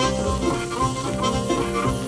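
Instrumental background music, a run of held notes changing pitch several times a second.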